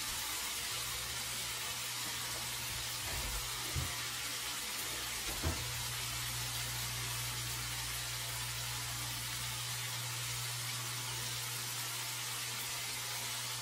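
Marinated boneless chicken thigh pieces sizzling steadily in oil in a stainless steel pan, over a steady low hum. Two faint knocks come about four and five and a half seconds in.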